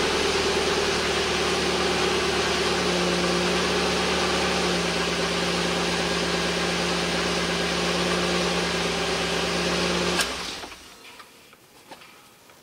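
Mazda Miata's four-cylinder engine idling steadily on a freshly installed Megasquirt plug-and-play ECU running a base map, its idle note settling slightly lower about three seconds in. About ten seconds in the engine stops, leaving a few faint ticks.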